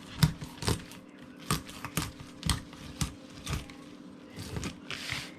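Knife cutting a fillet from a bass along the backbone: a run of short, sharp crunching clicks, roughly two a second, as the blade works through skin and past the bones.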